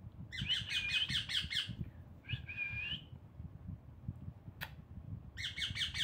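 Young green parakeet squawking in rapid, harsh, chattering calls: one bout of about a second and a half near the start, a shorter call in the middle, and another bout near the end. A single sharp click between the last two.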